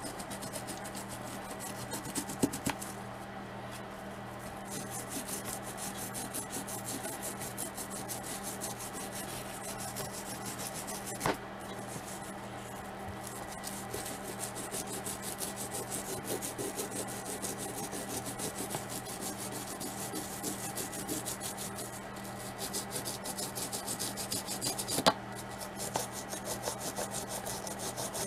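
Old toothbrush scrubbing a plastic action figure in rapid back-and-forth strokes, bristles rasping over paint softened by a soak in Super Clean degreaser. A few sharp clicks fall among the strokes.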